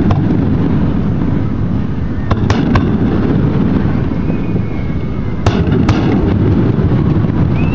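Aerial fireworks shells bursting over a steady low rumble. There are sharp cracks, three in quick succession about two and a half seconds in and two more about five and a half seconds in, with a faint whistle in between.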